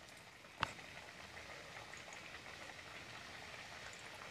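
Kachoris deep-frying in a kadhai of medium-hot oil: a faint, steady sizzle and bubbling of the oil around them. A single sharp click about half a second in.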